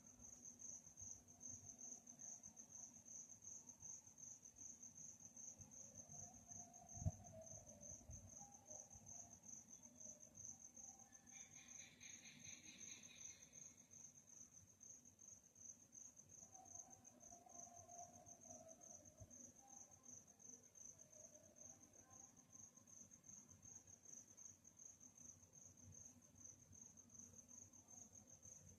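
Crickets chirping in a steady, fast, high-pitched trill. A second, lower trill joins for about two seconds near the middle, and there is a single dull thump about seven seconds in.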